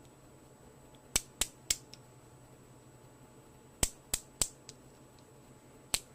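Metal ratchet pivot joint clicking through its spring-loaded ball-bearing detents as the head or handle is swung to a new angle: sharp clicks in two runs of three, then a single click near the end.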